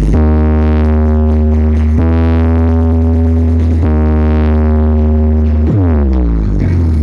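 Electronic music played loud through a big carnival sound system, with very heavy bass under sustained synth chords that change about every two seconds. Near the end the whole chord slides down in pitch.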